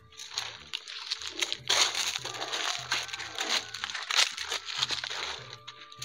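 Background music with a steady, repeating bass line, over the crunching and crackling of a Murrah buffalo's hooves and a man's sandalled steps on dry leaves and dirt.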